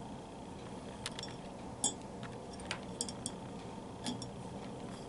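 Light metallic clicks and clinks of small steel ratchet parts, the pawls of a Proto half-inch ratchet, being handled and fitted into the ratchet head. There are about eight sharp, irregular ticks, some in quick pairs, between about one and four and a half seconds in.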